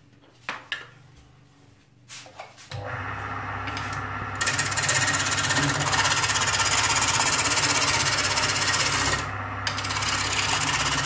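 A few knocks as the wood lathe is readied, then its motor starts about three seconds in with a steady hum. A gouge then bites into the spinning log blank, a loud, steady sound of wood being cut, with a brief break when the tool lifts off about two-thirds of the way through.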